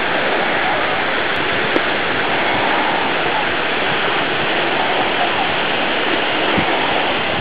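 Steady, even rushing noise with no rhythm or pitch.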